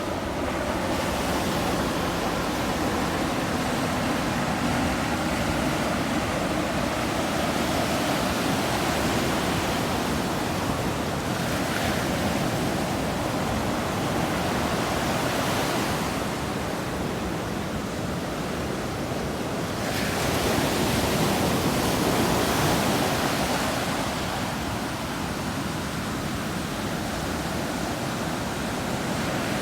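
Ocean surf: waves breaking and washing up a sandy beach, a continuous rushing that swells and eases every few seconds.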